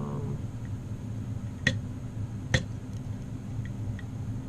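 Metal pick clicking against the pins of a 7-pin tubular lock: two sharp clicks about a second apart, then a few faint ticks, over a steady low hum.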